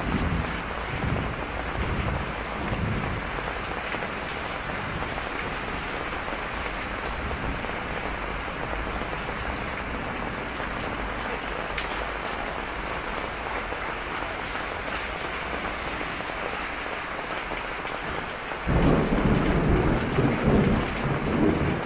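Heavy typhoon rain pouring steadily. There are low rumbles in the first few seconds and a louder, longer rumble near the end.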